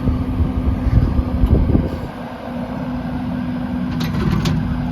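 Caterpillar 308D CR excavator's diesel engine running under hydraulic load with a steady hum, heavier from about half a second to two seconds in, then easing; a couple of light clicks near the end.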